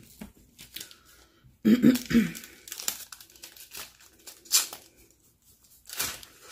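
Paper wrapper of a McDonald's hash brown crinkling and tearing as it is pulled off by hand, in a run of short rustles. A brief voiced sound from the person comes about two seconds in.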